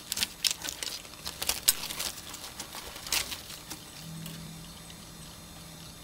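Irregular clicks and crackles of a digital camcorder tape dropout for about three seconds, then a faint steady low hum.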